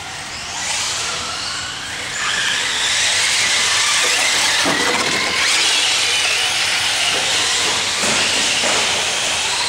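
Radio-controlled electric short-course trucks running on a dirt track: a high motor and gear whine that rises and falls with the throttle over a steady hissing rush, with a few brief knocks.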